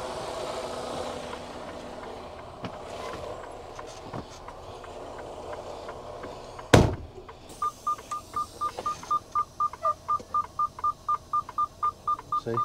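Semi-truck engine idling with a few light clicks as the driver climbs into the cab. About two-thirds in, the cab door slams shut once. Soon after, the dashboard warning chime starts beeping rapidly and steadily, about four short high beeps a second.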